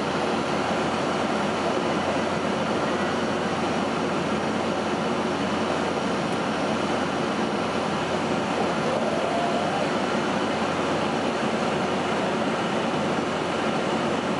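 Steady cabin noise of a Boeing 757-200 in cruise flight: an even rushing drone of engines and airflow heard inside the cabin, with a few faint steady tones in it.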